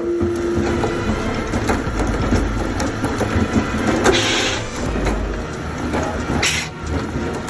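Log bark-peeling machinery running with a steady low drone and rattling knocks, and two short hissing bursts, about four and six and a half seconds in.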